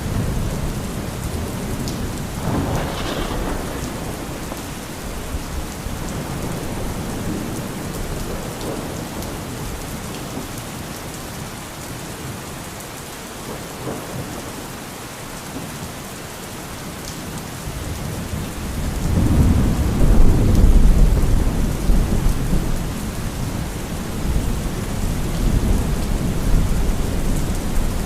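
Thunderstorm: steady rain with rolling thunder. A short crack of thunder comes about three seconds in, and a long, loud low rumble builds past the middle, peaks about two-thirds of the way through, and then slowly rolls off under the rain.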